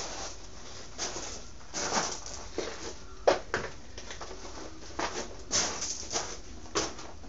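Scattered knocks and clatter of steel pieces and tools being handled on a workbench, about a dozen in all, the loudest about three seconds in.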